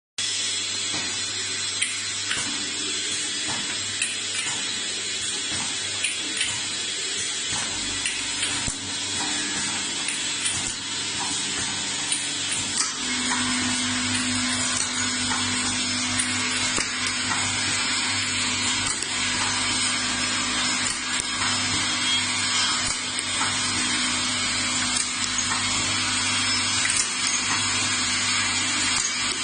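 Automatic bottle filling and capping machine running: a steady motor hum and hiss with frequent small clicks and knocks as the star wheel indexes the bottles through filling and capping. A second, higher steady hum joins about 13 seconds in.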